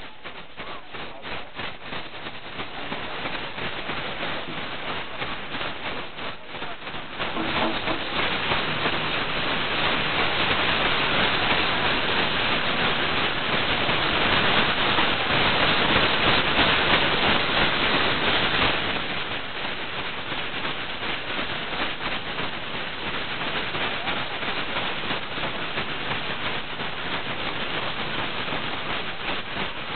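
Toré gourd rattles (maracás) shaken by dancers packed close together, giving a dense rain-like rattle. It comes in quick rhythmic strokes at first, then turns louder and continuous for about ten seconds before easing back. Voices are mixed in.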